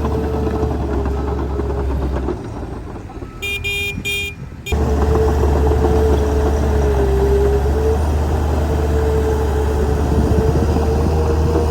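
Heavy diesel earthmoving machine, a Caterpillar 816D, running steadily. About two and a half seconds in its sound drops away briefly, and a few short high beeps sound before the engine cuts back in abruptly.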